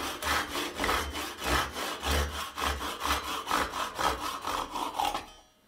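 Handsaw cutting through an old wooden hammer handle flush against the hammer head, in quick back-and-forth strokes about four a second that stop near the end.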